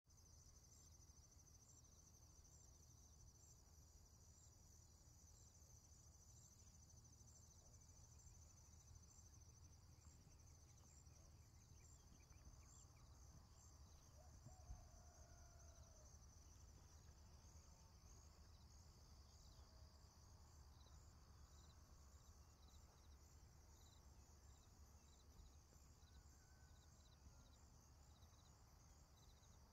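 Faint forest ambience: insects trilling in a steady, high, pulsing chorus over a low rumble, with a few faint bird notes and a single soft knock about halfway through.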